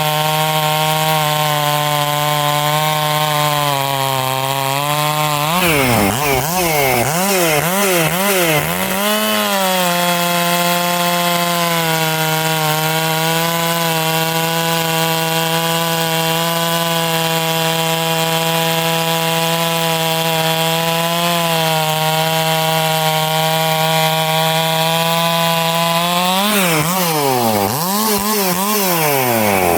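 Stihl 461 chainsaw cutting through a log at steady, loaded revs. Around six seconds in, and again near the end, the engine pitch swings rapidly up and down as the revs rise and fall between cuts.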